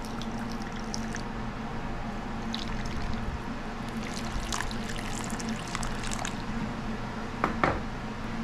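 Hot water poured from a glass cup into a cast-iron skillet of flour-coated haddock fillets, trickling and splashing, over a steady low hum. A sharp knock comes near the end.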